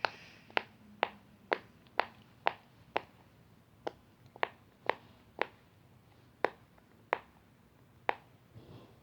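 Bubbles of a silicone pop-it fidget toy pressed one at a time on its loud side, a sharp pop about every half second, about a dozen in all, with a couple of brief pauses.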